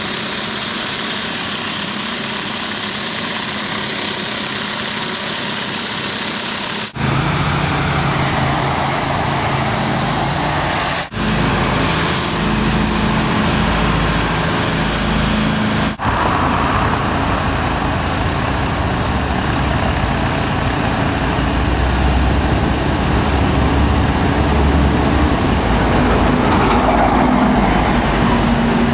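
Pressure washer running: an engine hum under the steady hiss of the high-pressure water jet from a surface cleaner working over concrete. The sound breaks off sharply three times, about 7, 11 and 16 seconds in, and each time comes back louder.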